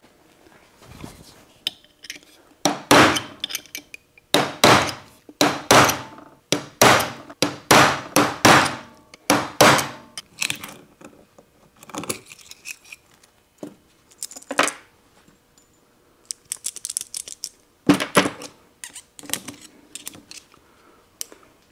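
Sharp metallic clinks and taps from a steel pick working the ball cage out of an original 1960s Federal ball bearing from a Ford Toploader gearbox. The taps come about every two-thirds of a second for several seconds, then a few more scattered clinks follow later.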